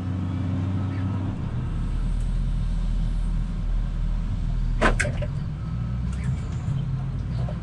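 Cat 972 wheel loader's diesel engine running under load, its note shifting as it digs into the gravel pile and raises the loaded bucket. A single sharp knock about five seconds in.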